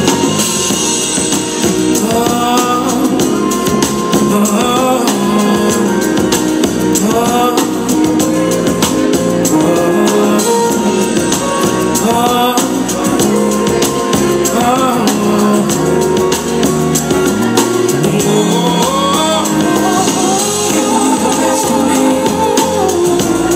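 Dance music: a song with a singer over a steady beat.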